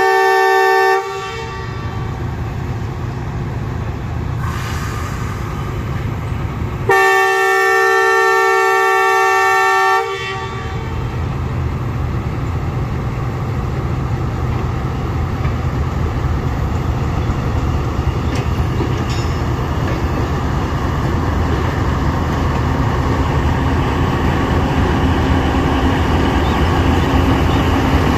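Diesel locomotive air horn sounding a multi-note chord, cutting off about a second in and blowing again for about three seconds near the seven-second mark. After it, a diesel locomotive's engine and wheels rumble steadily, growing slowly louder as it moves close past.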